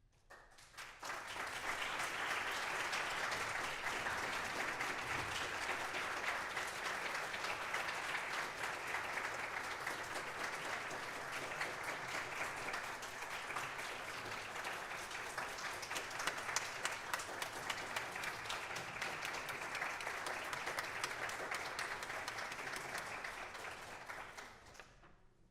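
Audience applauding: the clapping breaks out about a second in, holds steady, and dies away near the end.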